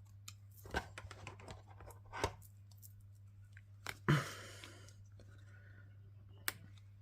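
Cardstock and small paper pieces handled on a craft table: scattered light taps and clicks, with a louder knock and a brief rustle about four seconds in, over a low steady hum.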